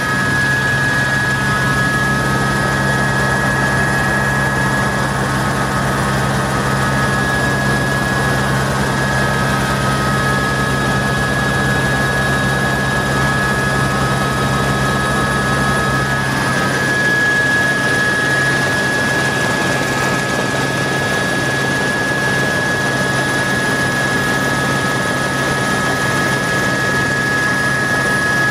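Helicopter in flight heard from inside the cabin: a steady rotor and engine drone with a constant high gearbox whine over it. The deepest rumble eases slightly about halfway through.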